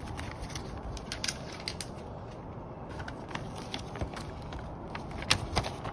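Packaging being handled and unwrapped: crinkling and rustling with scattered sharp clicks, one louder snap near the end.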